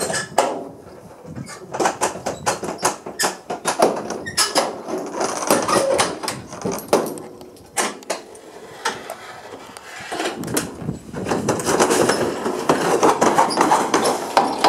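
Metal livestock trailer clanking and rattling, with cattle hooves knocking on its floor as a cow jumps out; a run of knocks and clatter that is thickest near the end.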